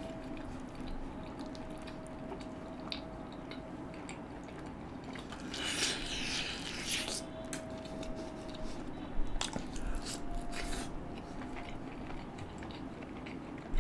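Close-miked eating: a bite into a sauce-coated piece of butter chicken about six seconds in, then wet chewing with scattered mouth clicks and smacks.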